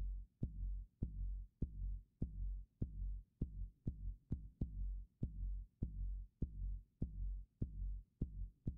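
Electronic music backing track: a lone deep kick drum beating steadily, about one beat every 0.6 seconds, with a sharp click on each beat.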